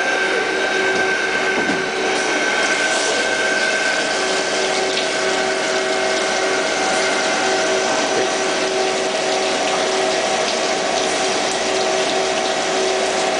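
Jenn Wei JW-21M CNC lathe machining a spinning part under flood coolant: the machine runs steadily with a few held tones over the hiss of coolant splashing on the work and chips.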